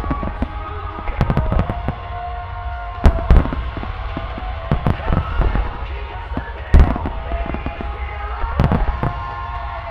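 Aerial firework shells bursting in a rapid barrage: many deep booms and sharp reports over a continuous rumble. The loudest booms come about three seconds in and again near seven seconds.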